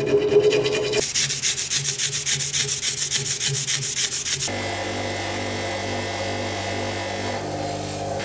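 Rapid, even abrasive strokes on wood, about eight a second. About four and a half seconds in they cut off suddenly and a steady low mechanical hum takes over.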